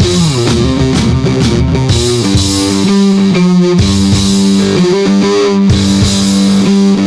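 Rock background music led by guitar, loud and steady.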